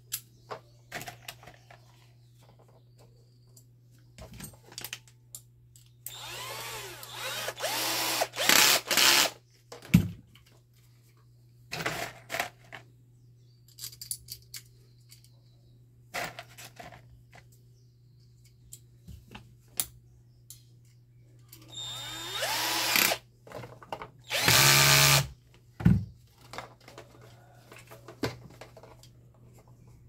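Cordless drill driving screws into a fan motor's housing in two spells of short trigger pulls, the motor speeding up and slowing down with each pull. Clicks and knocks of the parts being handled come in between.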